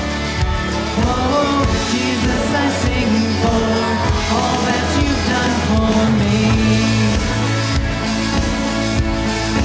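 Church worship band playing a steady pop-rock worship song, with sustained keys, guitars and bass.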